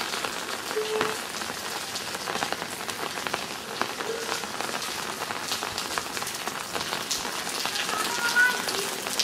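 Rain falling and pattering on surfaces: a steady hiss with many small drips.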